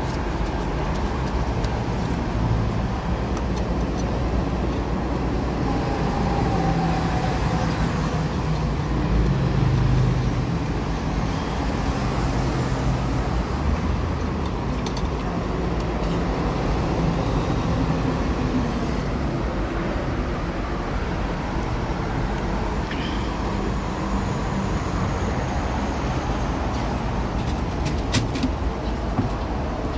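Steady road traffic and vehicle engine noise with a low, wavering engine hum, and a few sharp clicks near the end.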